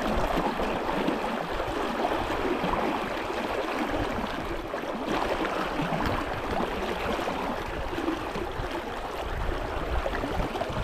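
Brook water running with a steady, even rushing noise.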